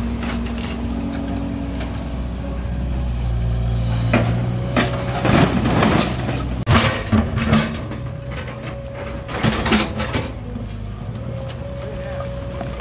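Case excavator's diesel engine running steadily while its steel bucket scrapes and crunches through burnt debris and broken concrete, with a run of sharp clanks and cracks from about four to ten seconds in.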